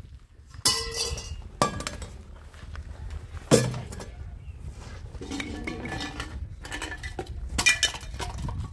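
Household pots and dishes clinking and knocking together as they are handled and set down, with a few sharp knocks, the loudest about three and a half seconds in.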